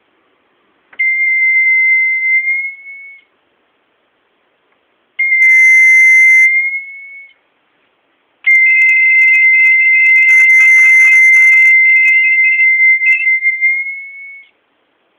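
Homemade low-cost seismic alarm's electronic buzzer sounding a steady high tone three times: briefly about a second in, again about five seconds in, then for about six seconds. Each time the pitch rises slightly as it fades out. The alarm is set off by vibration of the cabinet it sits on.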